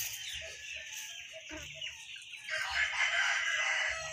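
A rooster crowing: one long call that starts about two and a half seconds in and falls away at the end.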